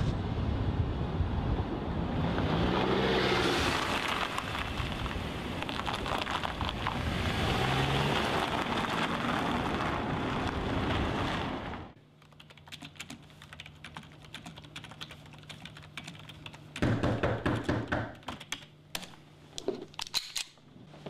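A steady rush of car and road noise from a car being driven, with a few slow swells in pitch. After about twelve seconds it cuts off suddenly to the rapid clatter of typing on a computer keyboard over a steady low hum.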